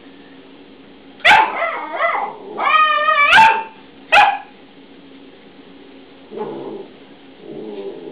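Alaskan Malamute puppy barking and yipping: a run of loud, high-pitched calls, one of them drawn out and wavering, between about one and four seconds in, then two short, quieter growls near the end.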